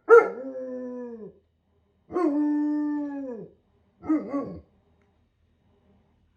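German Shepherd howling: two long howls, each held on one pitch and dropping at the end, then a short broken one.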